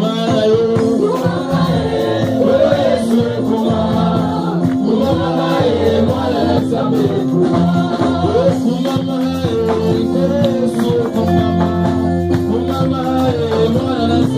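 Live gospel worship music: a band with electric guitar, keyboard and drum kit playing while singers lead a chorus into microphones.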